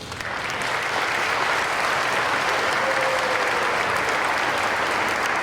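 Audience applauding, a sustained burst of clapping that starts abruptly and holds steady.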